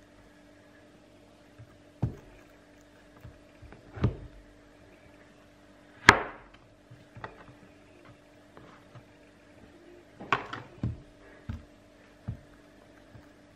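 A knife cutting slices from a bar of clear handmade soap: separate sharp cracks as the blade goes through and knocks on the cutting board, about two seconds apart at first. The loudest cut is about six seconds in, and a quick cluster of knocks comes near the end.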